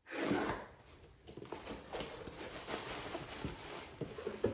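Cardboard shipping box being opened by hand: packing tape pulled off with a sharp tearing start, then flaps folded back and crumpled packing paper rustling and crinkling as it is pulled out.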